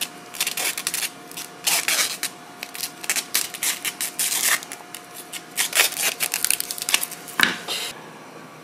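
Thin plastic protective film crinkling and crackling in gloved hands as it is pulled from a roll and wrapped around a knife blade, in quick irregular bursts that ease off near the end.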